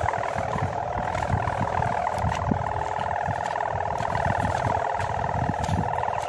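Sendaren (bow-type kite hummer) on a flying gapangan kite, humming a steady high drone with a fast fluttering pulse. Gusts of wind rumble on the microphone underneath.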